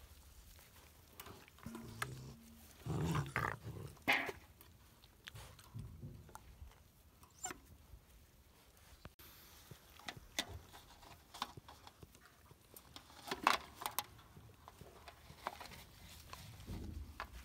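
Livestock guardian dog puppies vocalizing in short bursts, loudest about two to four seconds in. Scattered clicks and rustles follow as they jostle around their water dishes in dry straw.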